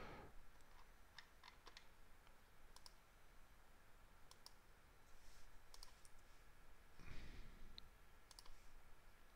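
Faint computer mouse clicks, scattered and several in quick pairs, over quiet room tone, with a soft rustle about seven seconds in.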